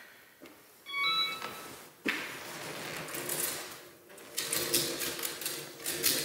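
Self-balancing hoverboard giving a short two-note electronic beep about a second in, then a sharp knock about two seconds in followed by a steady rustling, clicking clatter as the board is stepped on and moved.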